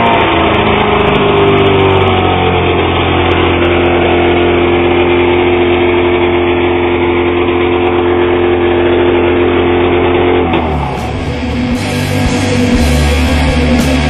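Ski-Doo Blizzard snowmobile's two-stroke engine settling back down to idle just after being revved, then idling steadily. About ten seconds in it cuts off suddenly and heavy rock music with electric guitar starts.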